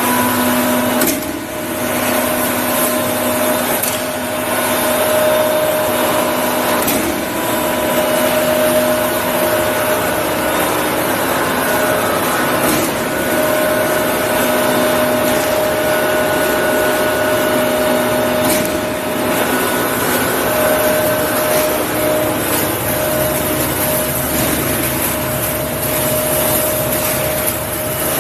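Steel coil processing line with flying shear running: a steady machine hum with several held tones over a hiss, broken by a few brief knocks.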